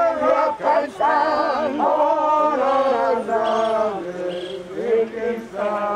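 Voices singing a slow melody in long, wavering held notes.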